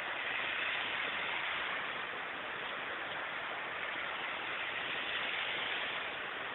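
Heavy rain falling in a steady downpour, an even hiss of water.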